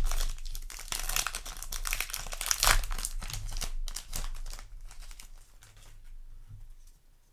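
Foil Yu-Gi-Oh! booster pack wrapper crinkling and being torn open by hand, a dense crackle for about four seconds that then dies down to lighter handling.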